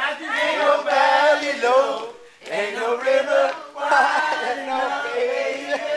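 Men's voices singing loudly together in two long held phrases, with a short break about two seconds in.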